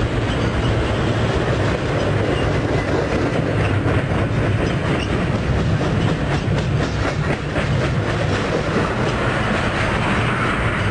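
A train running on the rails, its wheels clicking over the track in quick runs under a steady low rumble and drone.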